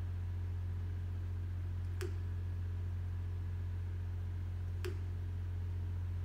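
A raven making its tapping sound: two sharp taps about three seconds apart, each with a short low knock. A steady low hum runs beneath.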